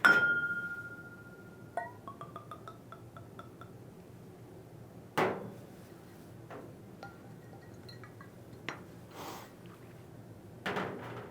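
Glass clinking: a sharp glass-on-glass strike that rings for about a second, a quick run of small ticks soon after, then a single knock and another near the end as glass is set down on a hard surface.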